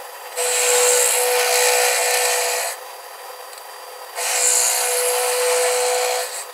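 Half-inch roughing end mill in a vertical milling machine cutting a slot into a metal tube, cutting well. The cutting sound, a steady whine with a hiss of chip noise, comes in two spells of about two seconds each, with the machine running more quietly between them.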